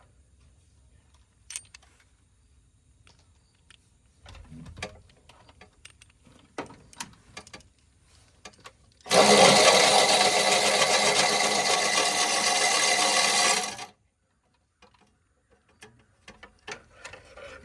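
Electric ratchet running for about five seconds, spinning a spark plug out of the engine, then stopping suddenly. Light clicks and knocks of the socket and tools come before it.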